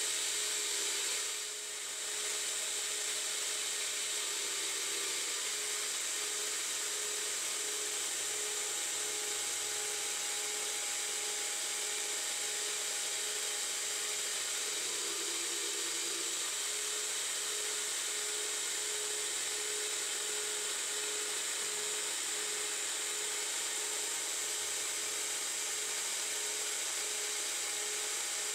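9x20 benchtop CNC lathe running, an insert boring tool cutting the inner bore of a bearing adapter: a steady high hiss with a low hum that pulses regularly underneath. It drops briefly about a second and a half in.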